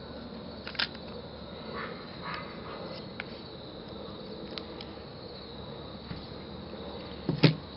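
Parts of a KWA MP9 gas blowback airsoft SMG being handled as its upper receiver is taken off the lower: a few light plastic-and-metal clicks, with one sharper clack near the end.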